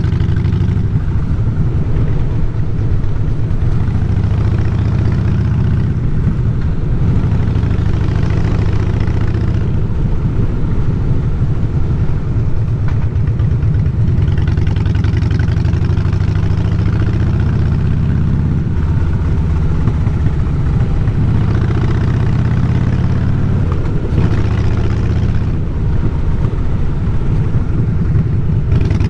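Harley-Davidson Fatboy's V-twin engine running under way, its note rising and falling several times as the rider works the throttle.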